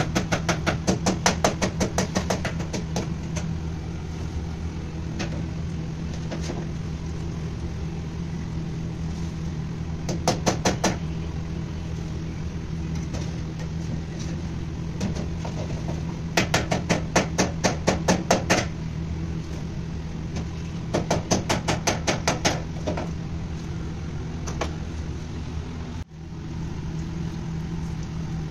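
Steady low machine hum of a commercial kitchen over deep-fryer oil frying doughnuts. The hum is broken four times by runs of rapid tapping, several taps a second for one to three seconds each.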